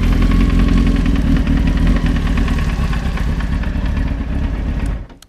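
1993 Honda CBR900RR's inline-four engine idling with a fast, even knocking from inside the engine, a knock that set in after a hard burnout. It cuts off abruptly near the end.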